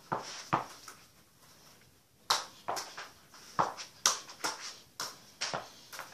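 A football juggled with bare feet and knees: a string of about ten sharp taps as the ball is struck, irregularly spaced, with a pause of about a second early on.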